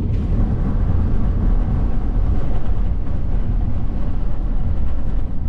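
Steady road and tyre rumble of a car driving on a paved highway, heard from inside the cabin.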